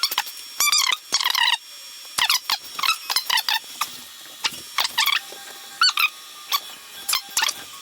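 Stepper motors of a Creality CR-30 belt 3D printer singing as the print head moves, a rapid string of short high-pitched chirps and whines that jump and glide in pitch with each move.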